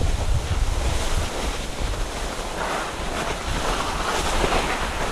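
Skis hissing as they slide and turn on snow, swelling twice in the second half, with wind rumbling on the microphone.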